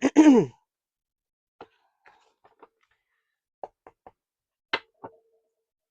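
A few faint, scattered clicks and taps of tarot cards being handled and laid down on a table, with one sharper tap near the end.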